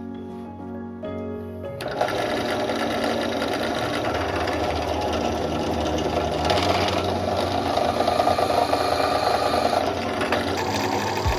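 Background music, then about two seconds in a workshop machine starts up loud with a rapid, dense mechanical clatter that keeps going steadily.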